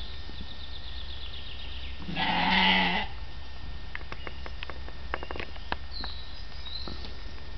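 An Estonian native sheep bleats once, a single call lasting about a second, a couple of seconds in.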